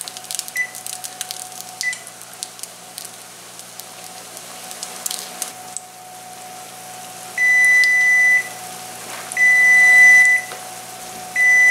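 Electric range's control panel beeping: two short key beeps as a timer is set, then the one-minute timer alarm sounding three long beeps about two seconds apart. Underneath, a breaded patty sizzles quietly in hot oil in a cast iron skillet.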